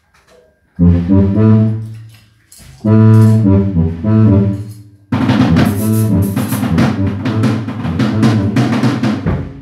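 Electronic keyboard playing loud held chords over a deep bass line, in two phrases starting about a second in and near three seconds in. From about five seconds in the drum kit joins with cymbals, snare and bass drum, and keyboard and drums play together as a band until just before the end.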